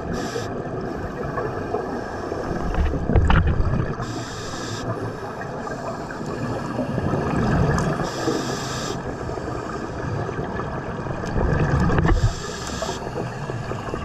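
Scuba regulator breathing underwater: about every four seconds a low gurgling rush of exhaled bubbles, each followed by a short hiss.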